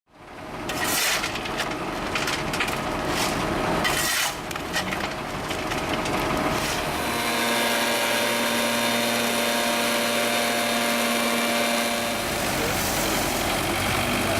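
Road-work machinery: a few seconds of rough scraping noises, then an engine running steadily.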